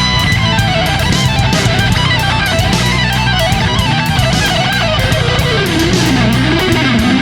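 Background rock music with distorted electric guitar over a steady beat.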